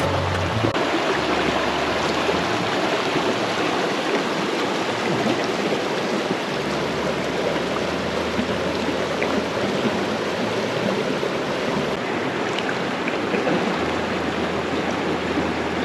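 A fast-running creek rushing steadily over rocks and shallows.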